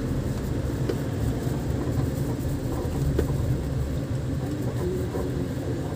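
A motor vehicle running, a steady low rumble of engine and road noise.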